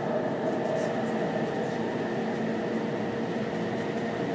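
Steady running noise inside a Chuo Line rapid commuter train car at speed: rumble of wheels on the track with a steady hum underneath.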